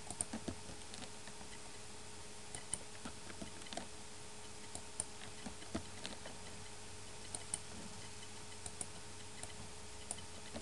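Faint, scattered computer keyboard keystrokes and mouse clicks in short irregular clusters, over a faint steady hum.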